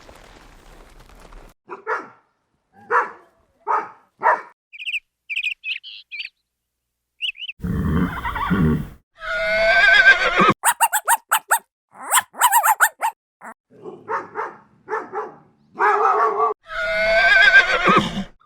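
A string of different animal calls one after another: a few short yelps, high chirps, a low rough call, and long wavering cries about halfway through and again near the end, with a run of sharp clicks between them.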